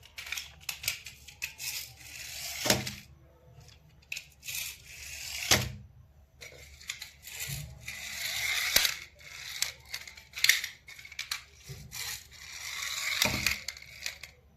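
Crinkling and tearing of toy packaging being handled, with many sharp clicks and three louder knocks spread through.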